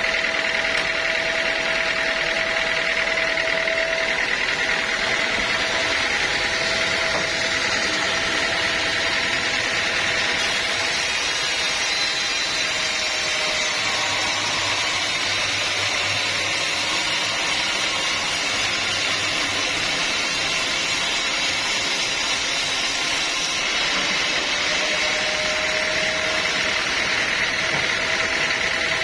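Sawmill saw and its motor running steadily, with a higher hiss added from about ten seconds in until about twenty-four seconds in.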